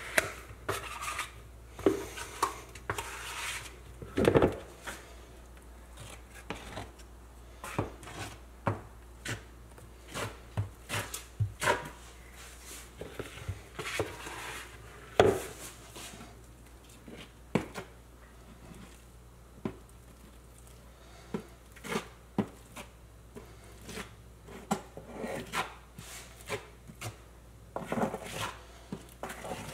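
Small plastic trowel spreading and scraping tile mastic onto a textured wall: irregular scrapes with light clicks and knocks, a few a second.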